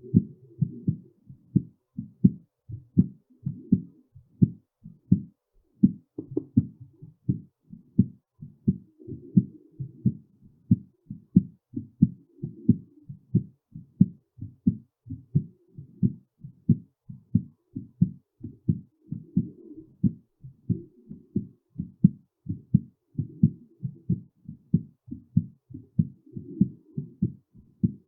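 Human heartbeat: low lub-dub beats in a steady, regular rhythm.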